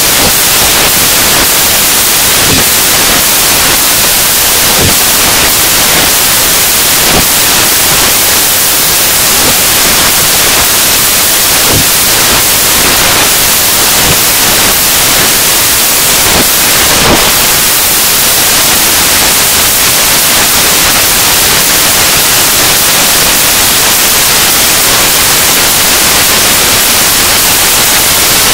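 Loud, steady static hiss filling the whole track, with a few faint knocks showing through now and then.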